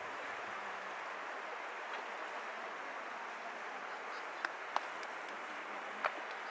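The Adige river rushing steadily, with three short sharp clicks in the last two seconds.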